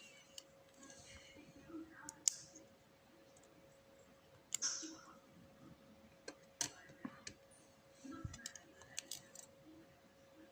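Irregular small metallic clicks and clinks of an Abus 7240 padlock's pins and parts being handled as the lock is taken apart, with two brighter clinks about two and four and a half seconds in.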